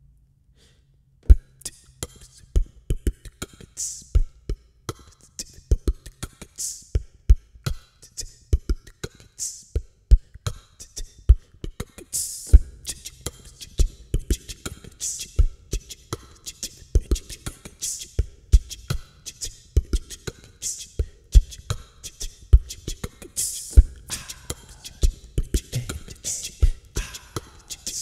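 Human beatboxing into a close microphone: a steady beat of mouth-made kick thumps and hissing snare and hi-hat sounds, starting about a second in.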